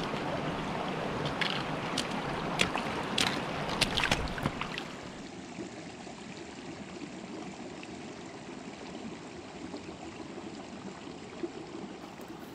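Steady rushing of a stream, with a few sharp clicks in the first half; the sound drops a little quieter about five seconds in.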